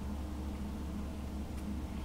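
Steady low background hum of room noise, with one faint click about a second and a half in.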